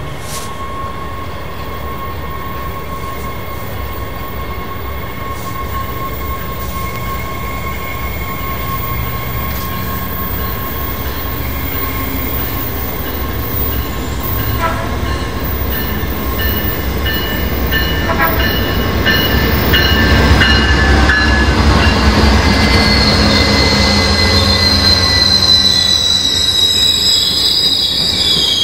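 Amtrak GE P42DC diesel locomotive and its passenger train approaching and rolling past, the engine and wheel noise growing steadily louder. From about three-quarters of the way through, a high metallic wheel squeal joins as the cars pass, and a few sharp clicks are heard shortly before.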